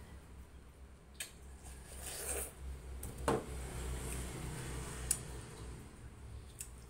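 Close-up sounds of a person eating watermelon: soft wet chewing and mouth sounds with three sharp clicks, the loudest about three seconds in, over a low steady rumble.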